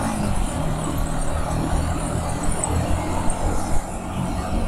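Yamaha MT-15's single-cylinder engine running at a steady pace while riding, with road and wind noise.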